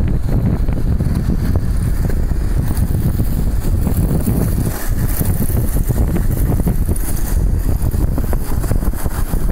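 Heavy wind buffeting on the microphone with a steady low road rumble, as heard from a car moving alongside the skaters.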